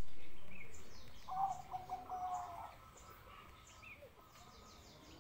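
Caged Bangkok-strain zebra dove (perkutut) giving a short burst of staccato cooing about a second in. Other small birds chirp repeatedly in the background.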